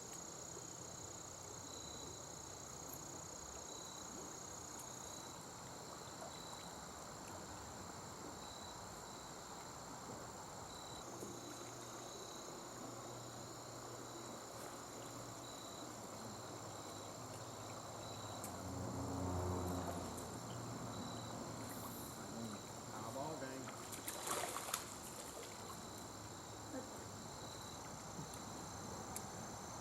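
Insects, crickets or similar, chirping in the background: a steady high trill with a row of short repeated chirps beneath it. About two-thirds of the way in there is a brief, louder low sound, followed a few seconds later by a short patch of clicks and rustling.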